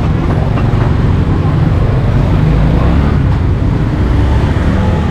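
Steady rumble of passing road traffic with voices in the background.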